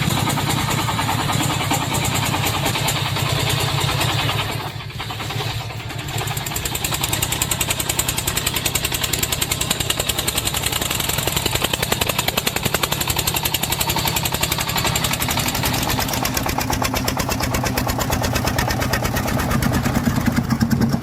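An engine running steadily with a fast, even pulsing, dipping briefly about four to six seconds in.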